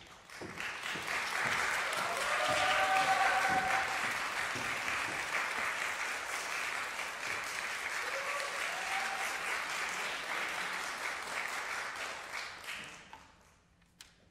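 Concert-hall audience applauding as the performers walk on and bow, with a voice or two calling out briefly in it. The clapping starts about half a second in, swells, holds, then dies away about 13 seconds in.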